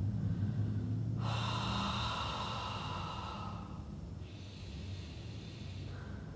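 A man breathing deeply and audibly in a yoga pose: two long, slow breaths, the first starting about a second in and the second about four seconds in.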